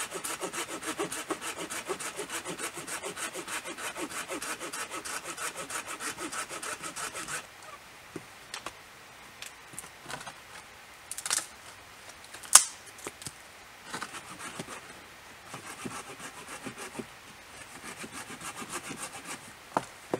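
Hand saw cutting through wood in quick, even back-and-forth strokes that stop about seven seconds in. Scattered knocks and clicks of wood follow, the loudest a single sharp knock around the middle, and lighter sawing strokes come back near the end.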